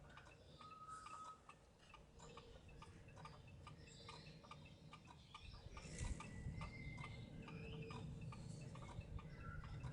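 Faint, quick ticking clicks, several a second, with a couple of short, high bird whistles; a low rumble comes up about halfway through.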